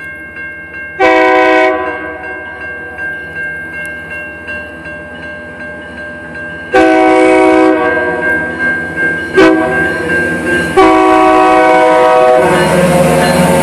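Freight train locomotive sounding its horn four times as it nears a grade crossing, over the grade-crossing warning bell ringing about twice a second. Near the end the locomotive reaches the crossing and a loud rumble of engine and wheels takes over.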